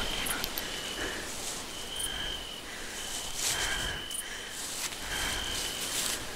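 Night forest ambience: crickets chirping in repeated trills on one high pitch over a steady hiss, with scattered soft clicks.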